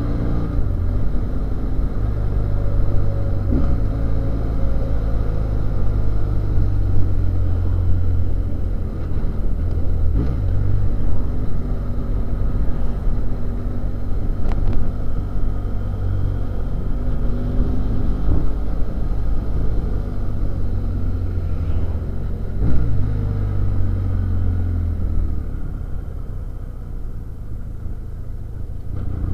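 BMW F800GS parallel-twin engine heard from on board while riding, its revs rising and falling through the bends. It drops to lower revs and gets quieter near the end as the bike slows for a hairpin.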